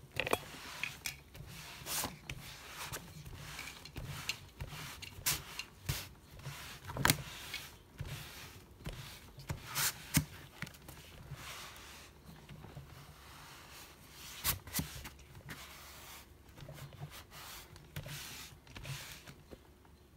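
Cloth rubbing and wiping across a sprayed plastic cutting mat, in irregular swishing strokes with a few sharper knocks.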